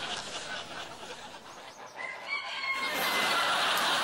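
A rooster crows once, a single drawn-out call about two seconds in. Laughter swells up near the end.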